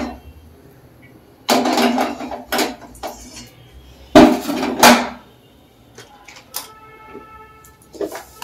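Metal utensils clattering and clanking against a steel kadai on a gas stove, in a series of separate knocks, with the loudest clank about four seconds in.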